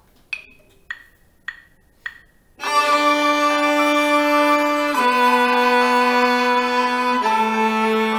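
Four evenly spaced count-in clicks, then a cello bowing long, loud notes that step down in pitch every two seconds or so: a descending pentatonic scale starting at fortissimo.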